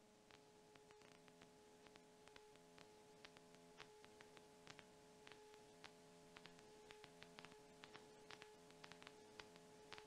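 Near silence: a faint steady electrical hum with a fainter pulsing buzz and scattered small clicks.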